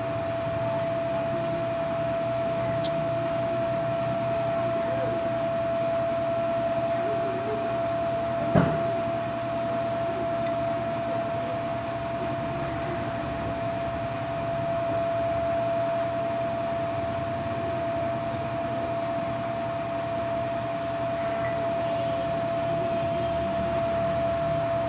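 A steady mechanical hum with one constant mid-pitched tone running through it, and a single sharp knock about eight and a half seconds in.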